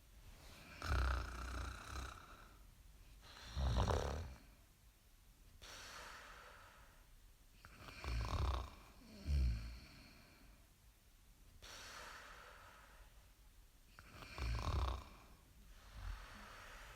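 Snoring: rough, low snores every few seconds, with quieter airy breaths between them in a slow sleeping rhythm.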